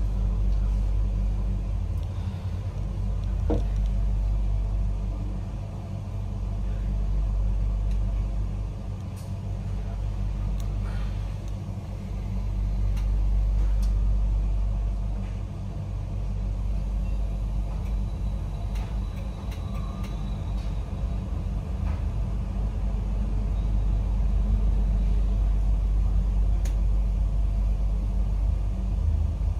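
Railway station ambience: a steady low rumble that swells and fades every few seconds, with a few faint clicks and knocks.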